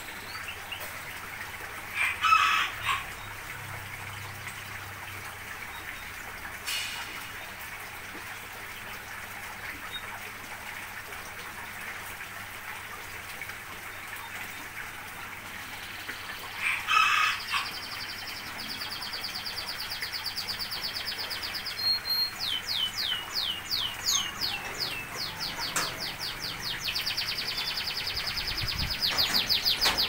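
A rooster crowing twice, about two seconds in and again around seventeen seconds. Over the second half, a long run of rapid, shrill bird chirping and chatter builds, densest near the end.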